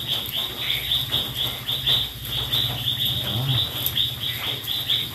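Rhythmic high-pitched animal chirping, about four even chirps a second, over a steady low hum.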